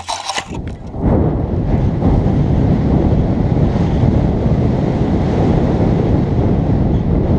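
Wind buffeting an action camera's microphone during a paraglider launch: a loud, steady low rumble that sets in about a second in. Just before it come a few sharp clicks and rustles.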